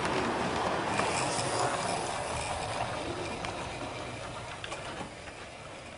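Model railway train running on a layout: the small train rolling along the track with a few faint clicks, growing quieter towards the end.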